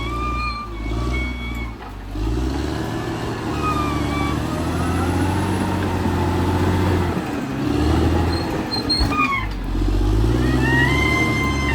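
Caterpillar D6R XL bulldozer's diesel engine working, its pitch and loudness rising and falling with load, dipping briefly about nine seconds in. A high whine sits over it near the start and again near the end.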